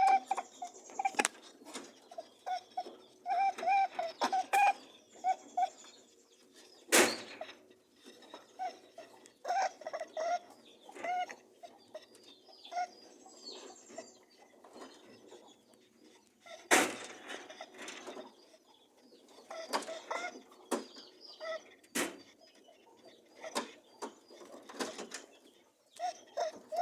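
Rabbits honking and grunting while mating: runs of short, quick pitched notes that come and go. Three loud sharp knocks land about a third of the way in, past the middle, and near the end.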